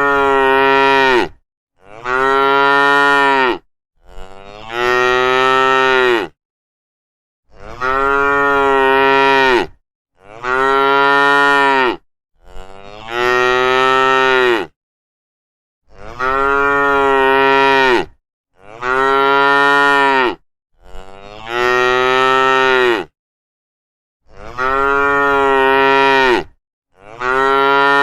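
Cattle mooing: a string of about eleven long moos, each lasting about two seconds, with the pitch rising a little and then falling, repeated every two to three seconds with short silences between.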